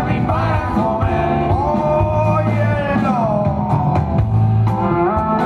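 Live rock band playing through the venue's speakers: a male singer holding long notes that slide between pitches, over acoustic guitar, electric bass and keyboard.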